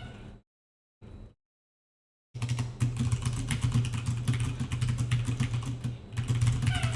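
Rapid typing on a computer keyboard, a fast run of key clicks over a steady low hum, starting a little over two seconds in.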